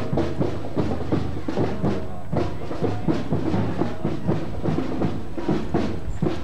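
Marching band playing a march on parade: drums keep a steady beat under held wind and brass notes.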